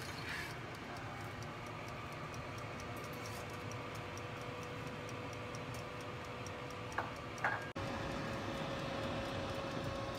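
Countertop halogen convection oven running, its fan giving a steady hum with a thin tone and a light regular ticking of about three ticks a second. Two sharp clicks come about seven seconds in.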